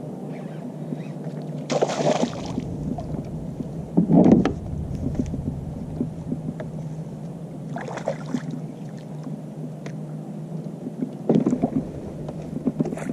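Sounds of a small fishing boat on the water: a steady low hum, broken four times by short, louder knocks and splashing noises.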